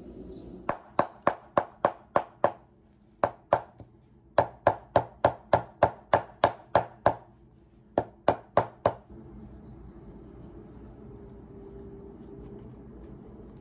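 Shoemaker's hammer striking the bottom of a leather chukka boot with its sole off, in four runs of sharp blows at about three a second that stop about nine seconds in.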